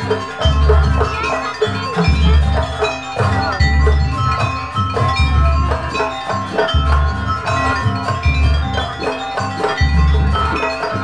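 Jaranan gamelan music played live: metal-keyed percussion rings out quick runs of short pitched notes over a deep low beat that comes about every second and a half.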